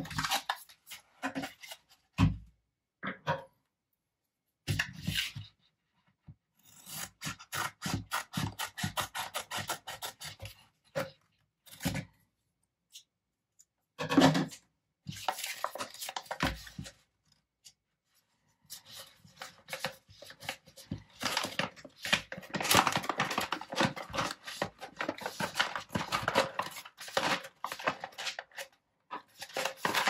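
Kraft-paper coffee bean bag crinkling and crackling as it is handled and opened, in bursts with short pauses, the longest and densest crinkling near the end as the bag is pulled open.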